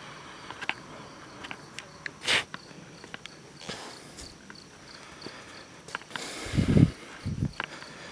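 Footsteps and scuffs of someone walking, over a faint background of night insects chirping in an even pulse. A louder rustle with low thumps comes about six and a half seconds in.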